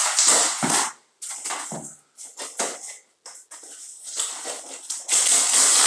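Cardboard box being torn open by hand: a string of short ripping and scraping noises, then a long, loud tear about five seconds in.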